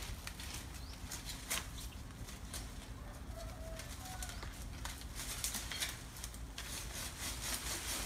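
Pruning saw on a long bamboo pole rasping against a mango branch overhead: irregular scrapes and clicks that come thicker and faster near the end. A couple of short chirps about three to four seconds in.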